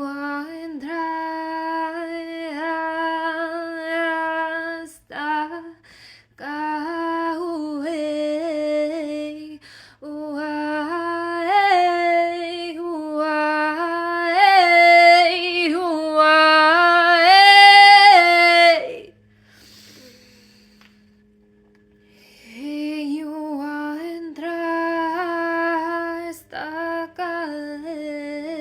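A woman's voice chanting light language in long sung tones, mostly held on one steady pitch with short breaks between phrases. The tones swell louder and brighter just past the middle, stop for about three seconds, then resume.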